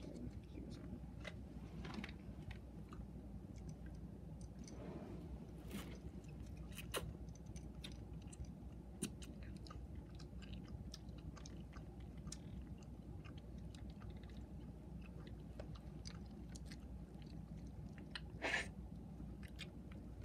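Faint chewing with soft, scattered mouth clicks as a stringy food is eaten. A short, louder rustle comes near the end.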